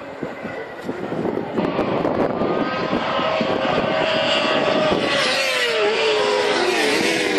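A pack of racing motorcycles at high revs, several engine notes overlapping, growing louder from about a second in as the bikes approach. Near the end the engine notes fall in pitch as the bikes go past.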